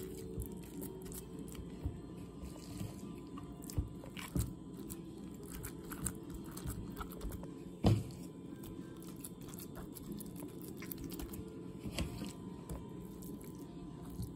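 Hands pressing raw ground-beef filling into bell pepper halves in a stainless steel pan: soft wet handling sounds of the meat with scattered light clicks, and one sharper knock about eight seconds in, over a steady low hum.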